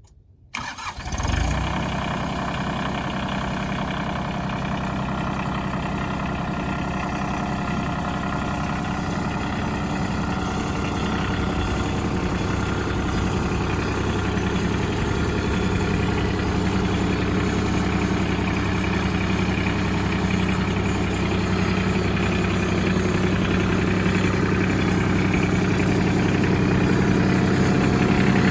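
Ford 1720 compact tractor's three-cylinder diesel engine starting about half a second in, catching almost at once and then idling steadily.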